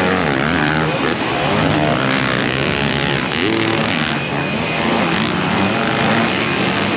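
Several motocross dirt bikes racing together, their engines revving up and down over one another.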